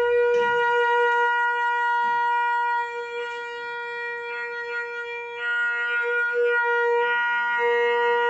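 Conch shell (shankha) blown in one long, steady note, a little softer for a few seconds in the middle before swelling back.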